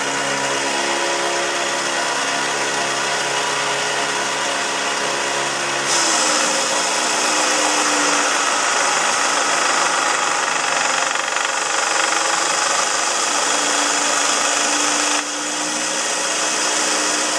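Speedster diamond-blade bandsaw running wet with a steady motor hum. About six seconds in, the blade bites into thin copper pipe: a loud high grinding hiss joins the hum and the motor drops slightly in pitch under the load. The hiss eases off about two seconds before the end, then partly returns.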